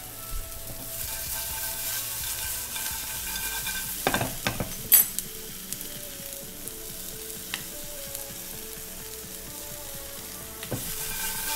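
Brussels sprouts and bacon sizzling in a frying pan, with a few sharp clinks of a utensil against the pan about four to five seconds in and a couple of single knocks later.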